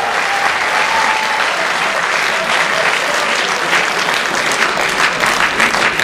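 Audience applauding, a steady dense clapping.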